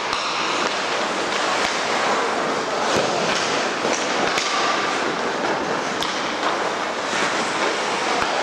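Ice hockey play on the rink: a steady hiss of skates scraping the ice, with sharp clicks of sticks and puck scattered through it.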